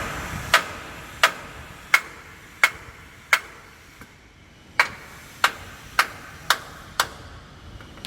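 A series of about ten sharp clicks or taps, roughly one every two-thirds of a second, with a short pause about halfway and the later ones coming a little faster.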